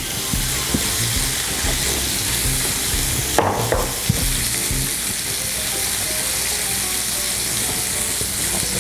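Beef burger patty sizzling and frying steadily in a hot grill pan, with a brief knock about three and a half seconds in.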